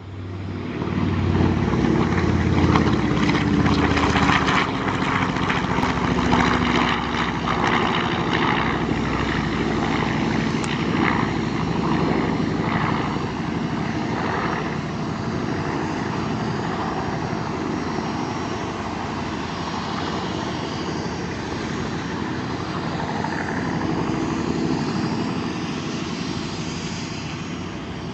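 Aircraft engines passing low overhead, a loud, steady propeller drone whose pitch falls slowly over the first several seconds and which eases off gradually toward the end.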